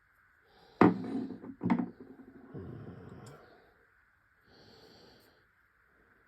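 Two sharp knocks about a second apart as screwdrivers are handled and put down on a hard surface, followed by a short rustle of handling.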